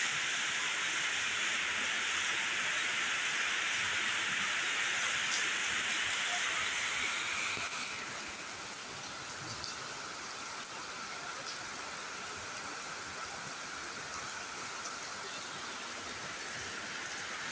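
Rain falling steadily on a paved courtyard and the trees around it, an even hiss that gets a little quieter about eight seconds in.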